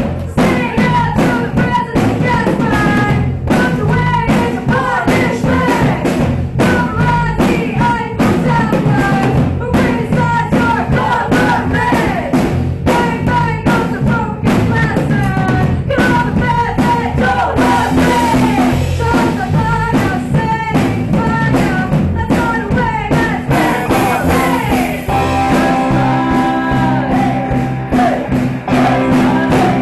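A live rock band playing a song: drum kit, electric guitars and a singer, starting in together abruptly and then playing on at full volume.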